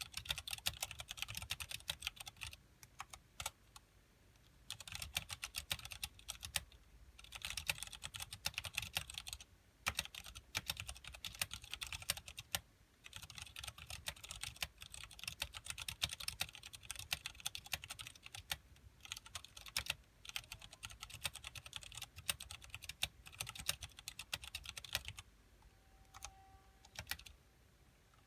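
Typing on a KBP V60 mechanical keyboard with Cherry MX Clear switches and Tai Hao PBT keycaps in an acrylic case: fast keystrokes in runs of several seconds, broken by short pauses.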